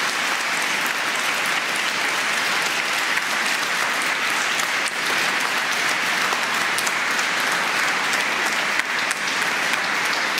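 A large congregation applauding steadily, many hands clapping at once.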